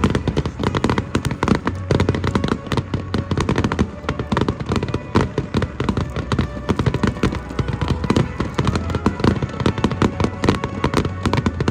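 Fireworks display in full barrage: a dense, unbroken run of bangs and crackles, many reports a second.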